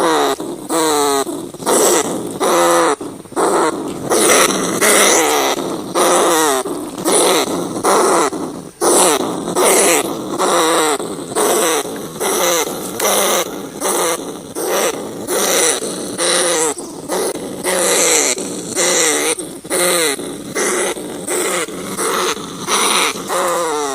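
Rats calling in a long, continuous run of short, harsh squeals with a wavering pitch, about one a second, with little pause between them.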